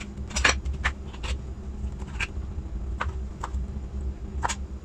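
Kitchen knife cutting soft canned pineapple into cubes on a plastic cutting board: irregular light taps of the blade on the board, about eight in all, over a low steady hum.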